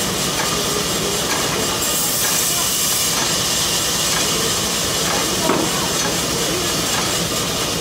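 Sawmill band saw running and cutting lengthwise through a wooden plank: a loud, steady hissing whine of blade and motor. The cutting noise turns brighter for about a second, around two seconds in.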